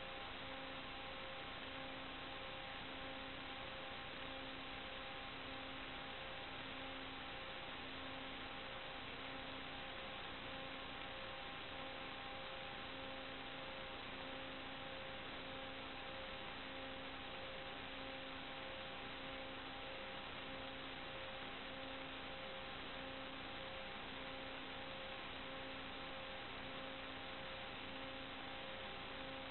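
Steady hiss with a faint hum of several fixed tones and a low tone pulsing on and off about once a second: the empty audio channel of an analog FPV video downlink, carrying no propeller or motor sound.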